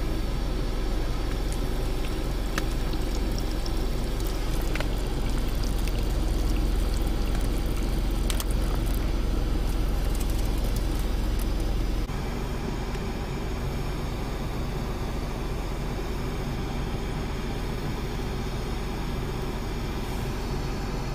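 Steady low rumble inside a parked car's cabin, with scattered small clicks and handling noises. The level drops abruptly about twelve seconds in.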